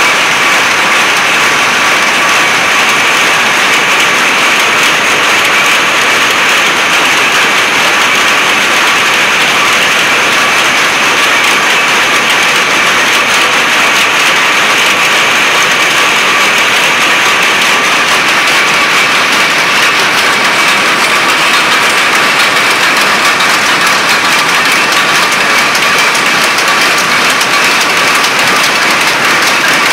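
Many power looms running at once in a loom shed: a loud, dense, steady clatter of rapid beats, with a faint steady whine through it.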